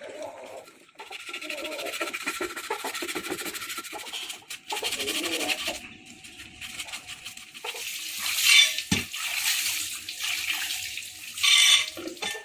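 A spray hissing over the engine parts, running unevenly, with two louder bursts near the end and a single knock between them.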